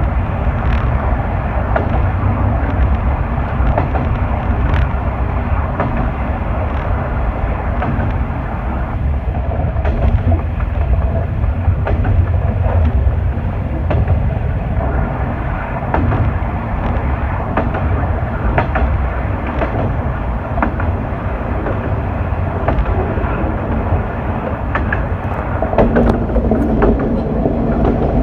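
Diesel railcar running along single track: a steady engine and wheel rumble, with the wheels clicking over rail joints every so often. A stronger humming note comes in near the end.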